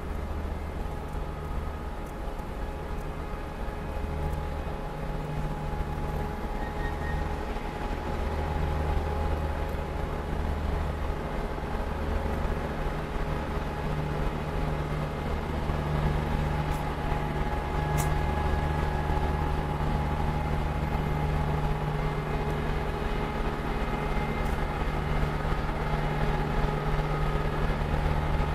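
Soviet L-class steam locomotives standing at a station: a steady low mechanical hum with faint steady tones above it, growing gradually louder.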